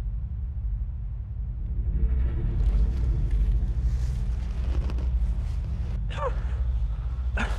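Deep, sustained drone of a horror film score, swelling in and holding steady, with a higher hiss joining about two seconds in. Two short sliding sounds near the end.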